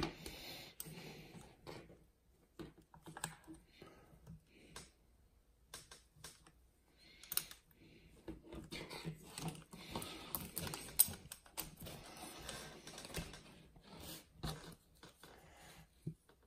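Irregular small clicks, taps and rattles of plastic and metal RC truck parts handled and fitted together by hand: the front suspension arm and hub of a 1/8-scale nitro truggy being worked as its driveshaft is popped back in. One sharper click stands out about eleven seconds in.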